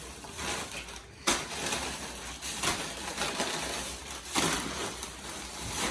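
Thin plastic carrier bags and foil chip packets rustling and crinkling as snacks are pulled out of the bags. There are sharper crackles about a second in and again after four seconds.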